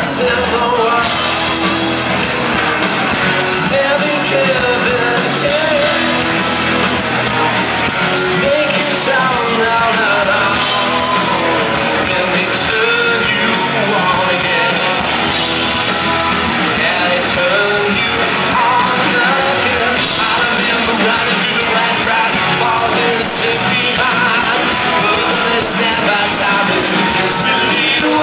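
Live rock band playing a song with electric guitar, drums and keyboard, and a lead singer singing over it, heard from within the crowd.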